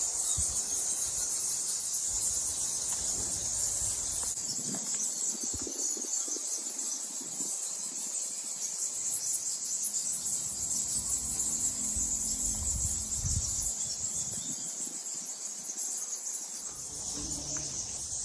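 Bat colony roosting in a limestone cave: steady, high-pitched squeaking and chattering of many bats at once.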